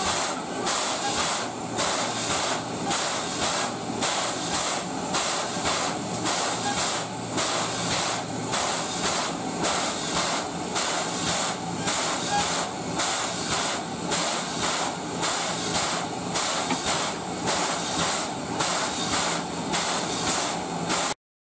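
A standing C11 steam tank locomotive hissing steam, the hiss swelling and fading in a regular pulse. The sound cuts off abruptly near the end.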